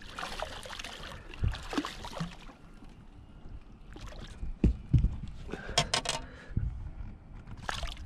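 A hooked smallmouth bass thrashing and splashing at the surface beside a boat, then water sloshing and a few sharp knocks and clicks as it is brought in by hand.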